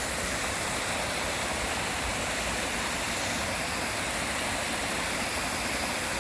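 Steady rushing of waterfalls cascading down a rocky gorge.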